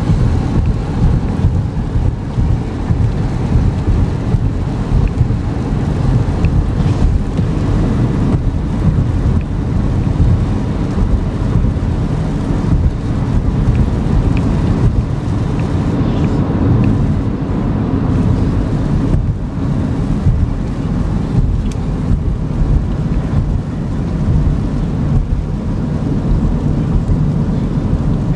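Steady low road and wind rumble inside the cabin of a 2014 GMC Terrain driving at highway speed on a wet road.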